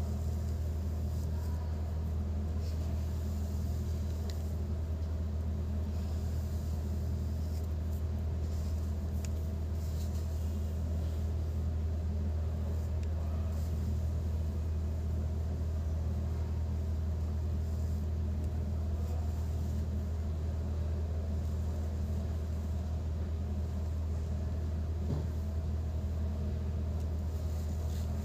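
A steady low hum, with a few faint ticks over it.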